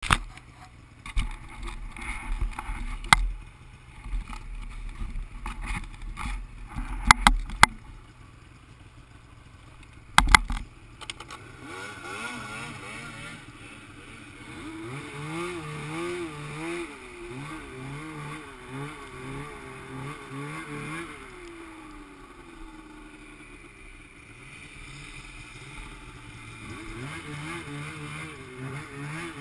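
Sharp knocks and thumps close to the microphone for about the first ten seconds, then a Polaris IQ 600 snowmobile's two-stroke engine running through deep powder, its pitch rising and falling as the throttle is worked.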